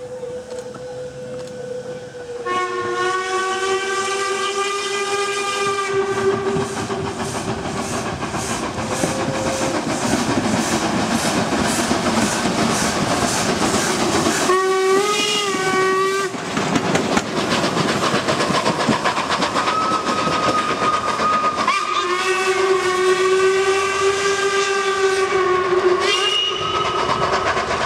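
Steam locomotive 464.202 whistling three long blasts as it works away under heavy steam, with a run of steady exhaust chuffs between the first two blasts.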